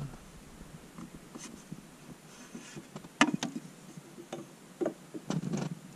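Scattered light clicks and knocks of plastic as a blower motor is handled in its housing under the dash and worked loose. The sharpest knocks come about three seconds in, with a cluster near the end.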